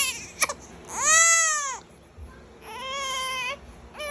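A cat meowing over and over: long, drawn-out, arching meows, each just under a second, with short pauses between them.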